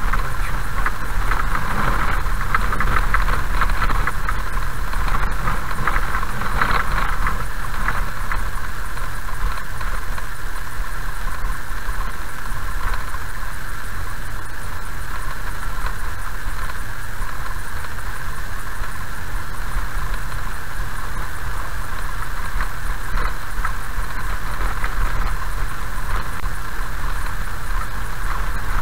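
A car driving slowly on a gravel road, heard from inside the cabin: steady tyre and engine noise over a low rumble. There is more gravel crackle and rattle in the first several seconds.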